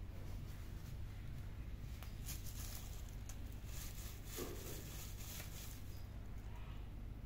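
Thin plastic strips of a cat's wand toy crinkling in scattered bouts as a cat paws and bites at them, over a steady low hum.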